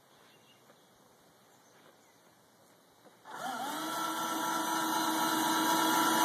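Electric screwdriver motor of a DIY automatic coop-door opener starting about halfway through, its whine rising briefly in pitch as it spins up, then running steadily. It turns a 3/8-inch threaded rod that slides the coop door.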